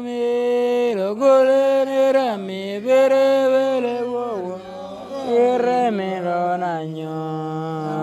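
Otuho (Lotuko) song: a voice sings long held notes, each about a second, sliding up or down between them, over a steady low note.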